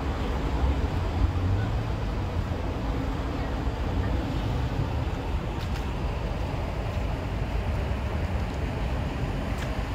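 Steady city street traffic: a low, even rumble of passing vehicles, with a couple of faint clicks about halfway through and near the end.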